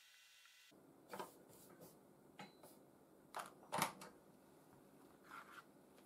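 Faint clicks and knocks of small tools and parts being picked up and set down on a workbench, a handful of short sharp strokes with the loudest pair just under four seconds in.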